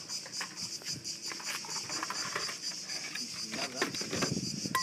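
Cicadas droning in a steady, pulsing chorus, with a stretch of rustling and knocks about four seconds in.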